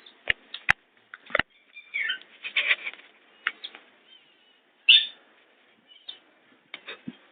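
Red-wattled lapwing chick calling with short, high chirping peeps at irregular intervals. A few sharp clicks come in the first second and a half.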